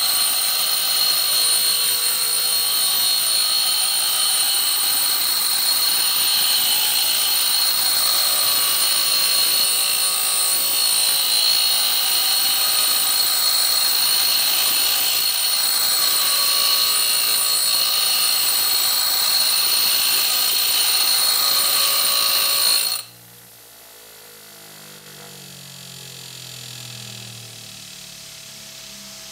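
A hex screwdriver bit spinning in a drill chuck ground against a coarse 36-grit bench grinder wheel: a loud, steady grinding hiss with a high whine, swelling and fading every second or two. About 23 seconds in the grinding cuts off suddenly, leaving a much quieter low hum that slowly slides in pitch.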